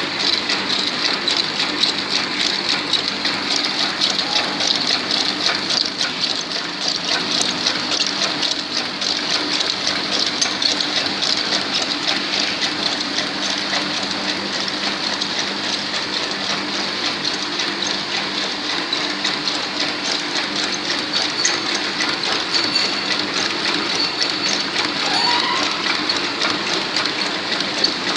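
Industrial printing machine running plain sticker stock: a steady, dense rattle and hiss with a low hum underneath.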